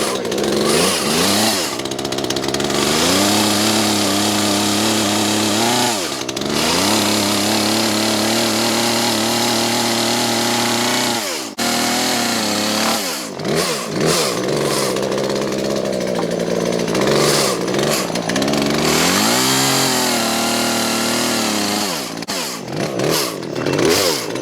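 Two-stroke chainsaw cutting through cedar log rounds: the engine is revved up and held at high speed through long cuts, dropping back toward idle between them several times, around six, eleven, thirteen and seventeen seconds in and near the end.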